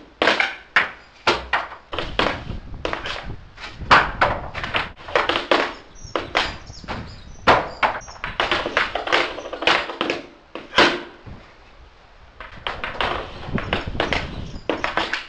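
Ice hockey stick blade clacking against a puck and a plastic shooting pad: quick, irregular taps of stickhandling, several a second, with a few louder cracks of shots.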